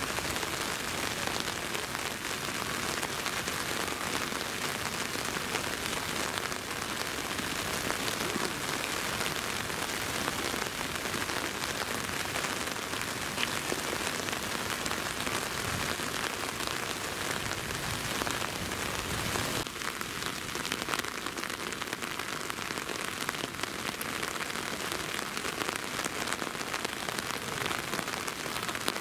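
Steady rain falling on foliage: an even hiss of drops with no breaks.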